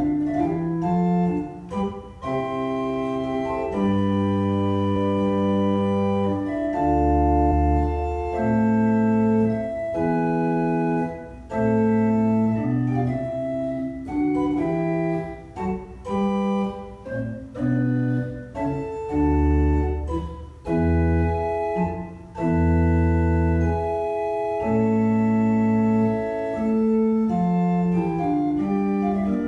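Small pipe organ playing early-Baroque music: sustained chords over a moving bass line, the notes changing every second or so with occasional deep bass notes.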